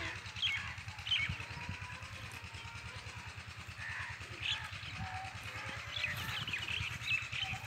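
Birds chirping now and then in short high calls, over a steady low rumbling background noise.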